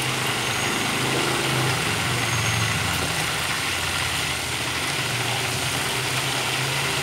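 Chicken drumsticks deep-frying in a pot of hot oil, a steady sizzle, over a steady low hum.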